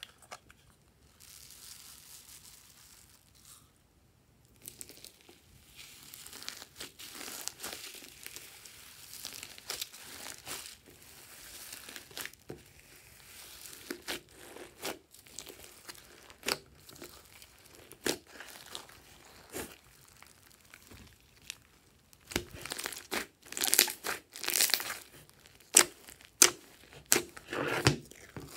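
Foam beads pouring from a plastic toy container into slime, then hands kneading and squishing the slime with the beads mixed in. It makes a crinkly, crackling rustle with many sharp pops, loudest in the last few seconds.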